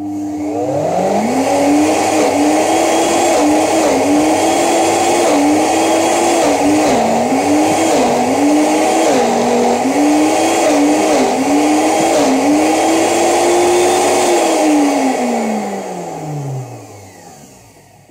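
1500-watt high-speed blender motor starting up and running loud on a thick frozen banana and blueberry mix with no water. Its pitch dips and recovers again and again as the tamper is pushed down and the load bogs it. Near the end it is switched off and winds down.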